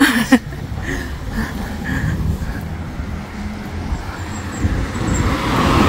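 Road and engine noise inside a moving car, a steady low rumble, with a couple of short knocks at the very start; the noise swells near the end.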